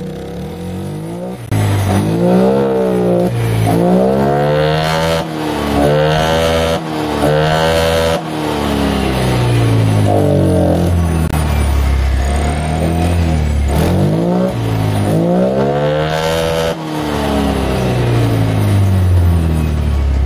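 Honda Vario 125 scooter's single-cylinder fuel-injected engine running with its air filter off, revved up and down over and over while carburettor cleaner is sprayed into the air intake to clean it.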